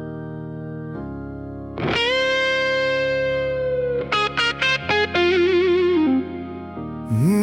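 Instrumental intro of a worship song: an electric guitar plays a slow lead melody of long held notes with vibrato over sustained chords.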